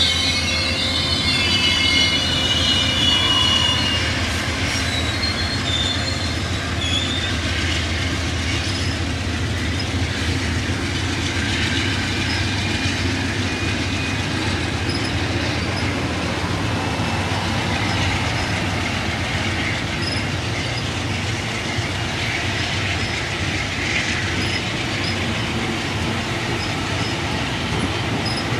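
Amtrak Superliner passenger cars rolling past with a steady rumble of steel wheels on the rails. A high wheel squeal sounds in the first few seconds, then fades, leaving the even rolling noise.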